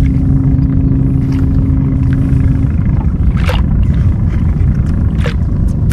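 A small fishing boat's engine idling with a steady low hum that drops out about three seconds in, leaving a low rumble.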